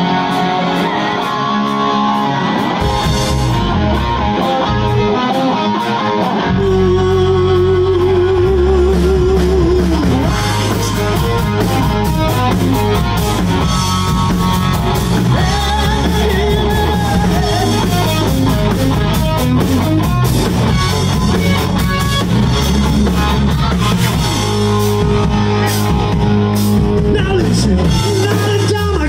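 Live rock band playing with electric guitar, bass, drums and a male lead singer. The opening seconds are lighter, and the full band with heavy bass and drums comes in about six and a half seconds in.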